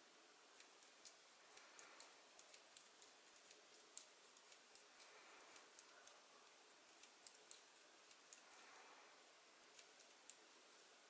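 Knitting needles clicking faintly as stitches are knit: light, irregular ticks, two or three a second, with a sharper click about four seconds in.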